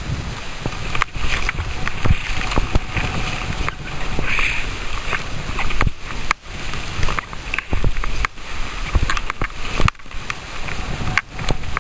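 Scraping and hissing of sliding down a chopped-up snow slope, with wind rushing over the microphone and frequent sharp knocks and bumps.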